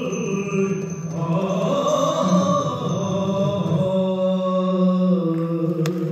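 Yakshagana bhagavata's chant-like singing in long, slowly gliding held notes, fading near the end, with a few sharp drum strokes just before it closes.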